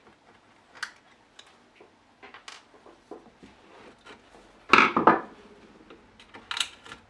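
Scattered clicks and knocks of hand tools and metal parts being handled during disassembly of a concrete vibrator, with a louder clatter about five seconds in.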